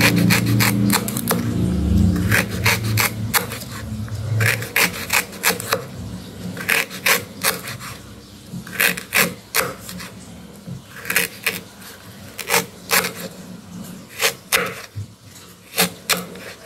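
Kitchen knife slicing galangal root on a wooden cutting board: irregular groups of sharp chops against the board. A low drone fades out over the first few seconds.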